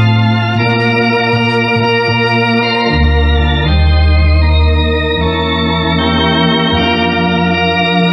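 Harmonia HS 200 Super electronic organ playing a hymn in four-part harmony: held chords over a low bass line, changing every one to two seconds.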